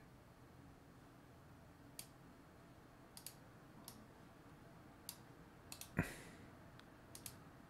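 Computer mouse clicking at irregular intervals, some clicks single and some in quick pairs, over a quiet background. The loudest comes about six seconds in and carries a low knock.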